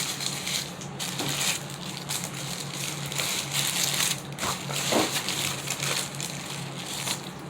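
Close-miked chewing of food, with irregular crunching and munching noises. A faint steady hum runs underneath.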